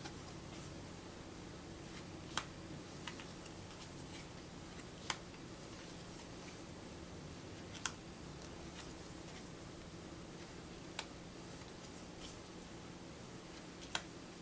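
Thin paper game cards from the Get a Grip deck being flipped over one at a time. There are five sharp card snaps about three seconds apart, with softer ticks between them, over a faint steady hum.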